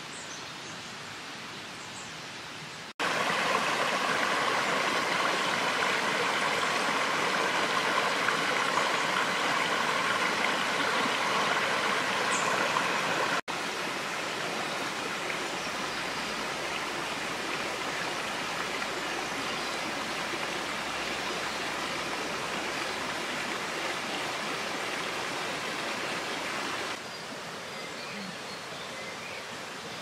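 Running water of a shallow rocky stream, a steady rushing hiss. It comes in blocks of outdoor sound that change abruptly: quieter at first, loudest from about three seconds in, a little softer from a little before halfway, and quieter again near the end.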